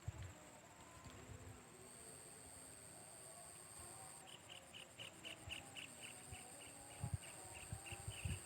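Insects calling with a steady high-pitched trill. About halfway through, a second insect joins with a chirp pulsing evenly about five times a second. There are a few soft low thumps near the end.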